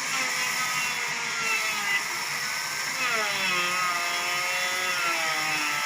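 Sawmill saw running through wood, its whine gliding up and down in pitch as the load changes.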